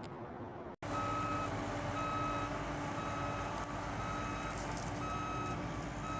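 Backup alarm on heavy construction equipment beeping about once a second, over the steady drone of running diesel machinery; it starts abruptly about a second in.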